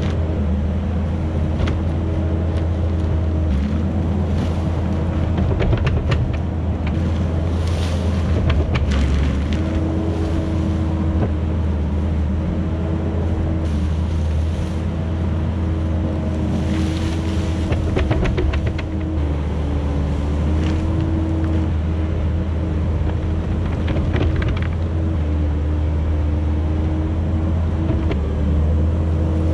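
Kubota SVL75-2 compact track loader's diesel engine running steadily under load while it carries, dumps and pushes dirt over a culvert pipe. The engine's pitch steps up and down a few times, with scattered clanks and rattles from the tracks and bucket.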